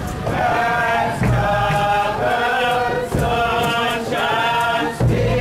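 A group of Bobo Shanti Rastafarian marchers chanting in unison, their voices holding long sung notes, with a few low thumps underneath.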